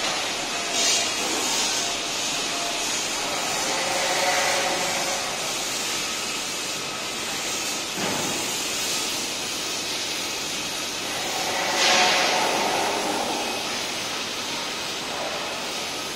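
Sheet-metal laser cutting machine running: a steady hiss, with a short sharp burst about eight seconds in and a louder swell about twelve seconds in.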